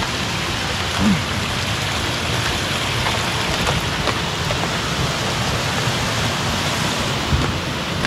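Steady rushing of a waterfall and its rocky stream, with a few faint knocks of footsteps on rock.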